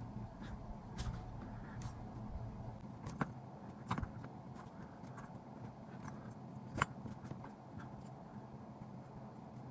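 Faint, scattered clicks and ticks of small aluminum roof-rack pieces being handled and folded in by hand, a few sharper taps among them, over a low steady hum.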